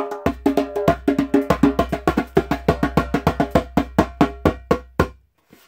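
Djembe played with bare hands: a fast, even run of taps and slaps, each stroke ringing briefly, ending abruptly about five seconds in.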